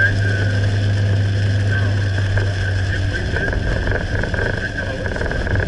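Steady engine and road noise of a car driving on a highway in a rainstorm, with an unbroken low hum under a constant hiss.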